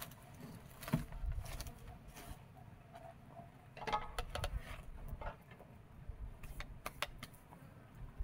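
Dishes being washed by hand in a basin: irregular clinks and knocks of pots and plates against each other, with patches of water sloshing.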